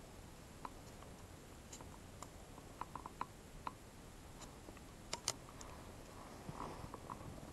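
Faint scattered clicks and light taps of fishing tackle being handled while a tripped float circle is checked and found empty. The loudest is a pair of sharp clicks about five seconds in.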